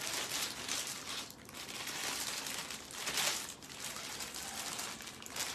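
Rustling and crinkling of a saree being handled, folded away and swapped for the next one, in uneven swells.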